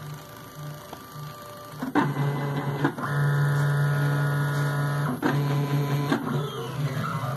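Stepper motors of a homemade roller-chain-driven CNC router whining as they move the pen carriage over the paper, starting, stopping and changing pitch with each move. It is quieter with short blips for the first two seconds, then runs as a steady whine from about three seconds in. Near the end the pitch slides up and down.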